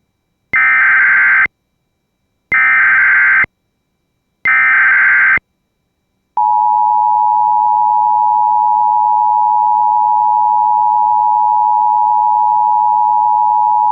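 Emergency Alert System signal: the SAME digital header sent three times as short, one-second bursts of high data warble, then about six seconds in the steady two-tone EAS attention signal (853 and 960 Hz sounding together). Here it announces a Blue Alert.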